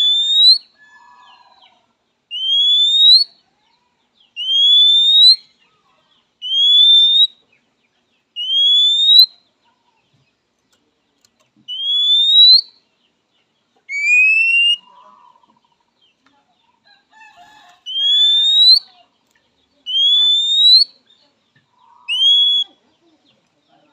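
Oriental magpie-robin (kacer) giving a loud, rising whistled call about ten times, each whistle about a second long and roughly two seconds apart, with two longer pauses. This is the kacer's typical call to a rival.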